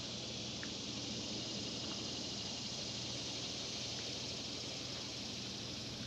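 Steady outdoor chorus of insects buzzing, over a constant low hum, with a couple of faint short chirps about half a second in and near four seconds.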